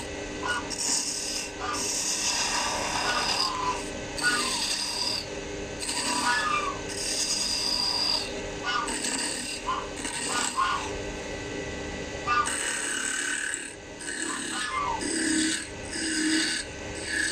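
Wood lathe running with a handmade skew chisel scraping a spinning wooden bead blank in short, repeated passes. The scrape comes and goes over the steady hum of the lathe. Short honking calls, from a goose, break in now and then.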